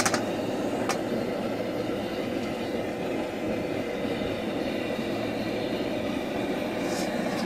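High-output propane wok burner running steadily on low under an oil-coated carbon-steel wok, a constant rushing noise of the gas flame, with a few sharp ticks.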